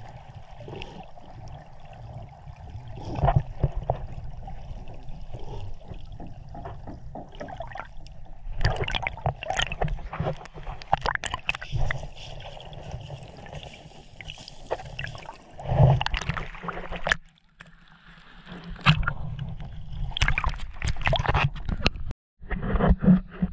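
Sea water splashing and sloshing in irregular bursts over a low rumble, breaking off briefly twice in the second half.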